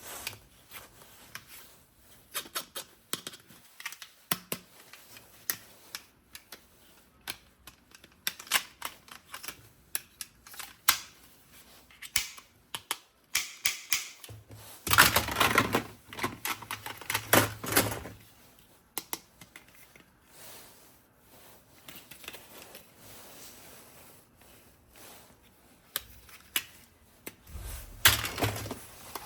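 Hands handling a plastic toy gun and its packaging: a string of sharp plastic clicks and rattles, with two louder stretches of rustling and knocking, one around the middle and one near the end.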